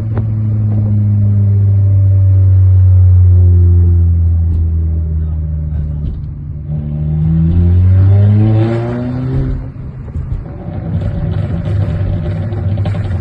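Seat Leon FR's turbocharged 2.0 TFSI four-cylinder engine running at steady revs, then climbing in pitch for a couple of seconds. When the throttle closes, about ten seconds in, the exhaust breaks into a rapid run of pops and crackles on the overrun, the crackle map programmed into the remapped Bosch MED9.1 ECU.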